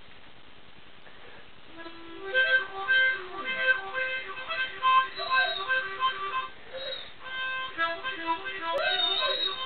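Harmonica played in chords starting about two seconds in, with a white shepherd dog howling along a few times, each howl rising and falling in pitch, the strongest near the end.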